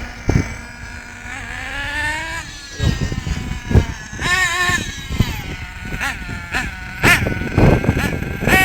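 Radio-controlled car's motor revving up and down in short, repeated rises and drops in pitch, with several thumps and knocks.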